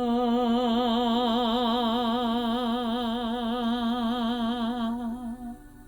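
A woman's voice toning one long, held 'ah' with a steady vibrato, fading out near the end, over soft ambient music.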